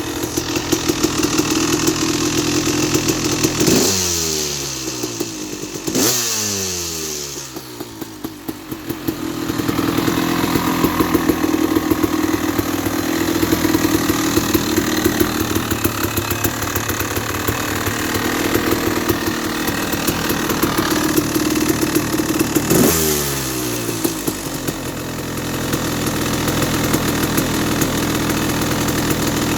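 2000 KTM 380 EXC single-cylinder two-stroke dirt bike engine with an FMF pipe, idling after its first start-up following a carburettor clean. The throttle is blipped three times, twice a couple of seconds apart and once much later, and the revs fall away each time. The owner calls it running alright.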